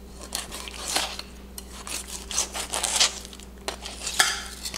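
Fillet knife cutting a peacock bass fillet away from the backbone and rib cage, the blade running over the bones in a series of short scraping strokes, the loudest near the end.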